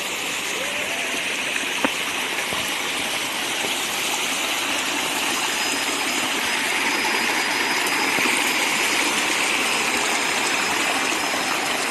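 Water of a forest stream running, a steady rush; a faint thin high tone joins in the second half.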